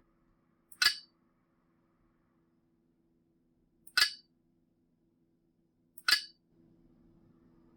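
Three short, bright clinking sound effects played by the laptop's software, about 3 and 2 seconds apart, each led by a faint click, over a faint steady hum.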